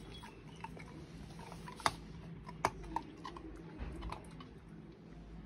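A Labrador puppy chewing and crunching a treat: irregular sharp crunches, the loudest about two seconds in.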